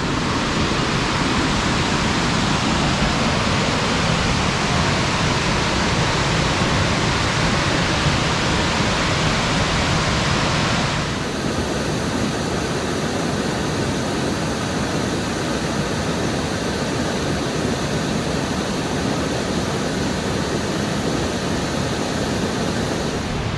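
Steady rush of the Burgess Falls waterfall, a dense noise of falling water. About eleven seconds in the sound changes suddenly, becoming a little quieter and less hissy.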